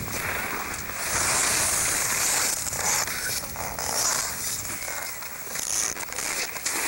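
Snow-sliding board or skis hissing and scraping over packed snow while riding fast downhill, the scrape growing louder about a second in and easing off near the end.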